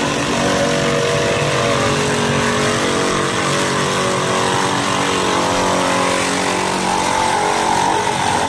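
Electric ice crusher running steadily, its motor whining over the hiss and grind of the blade shaving tube ice into snow that sprays onto a steel plate.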